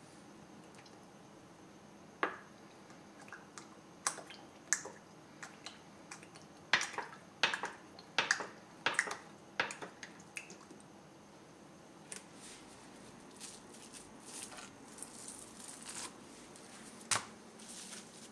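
Sharp clicks and light knocks from handling a nonstick frying pan and a plastic oil bottle, with cooking oil poured into the pan about ten seconds in. A faint crackling hiss follows near the end.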